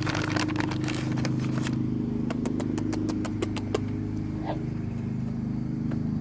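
A vehicle engine idling with a steady drone. A rapid run of sharp crunching clicks comes from about two to four seconds in.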